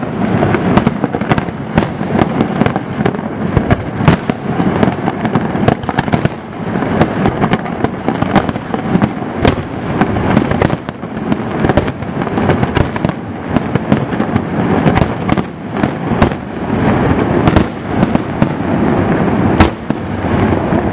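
Aerial fireworks display in full barrage: dozens of sharp shell bursts at irregular, rapid intervals over a continuous rumbling, crackling wash.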